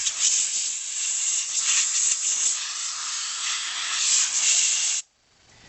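Steady spraying hiss while a tractor radiator is cleaned with acetone, cutting off abruptly about five seconds in.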